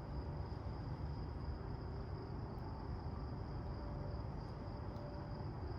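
Steady high chirring of night insects, typical of crickets, over a low steady rumble.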